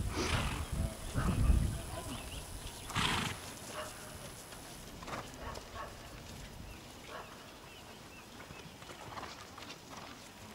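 A horse walking on grass, its hoofbeats faint, with a short breathy blow from the horse about three seconds in. A low rumble is the loudest sound in the first two seconds.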